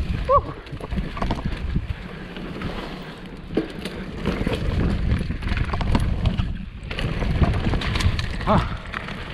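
Downhill mountain bike descending a rough trail over roots: a steady rush of tyres on dirt and wind on the microphone, with frequent rattles and knocks from the bike over bumps. A brief vocal whoop comes right at the start and again near the end.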